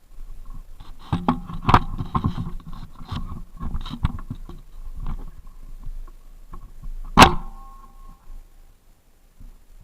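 A run of metallic clicks, rattles and knocks, then one sharp, loud clack with a short ring about seven seconds in.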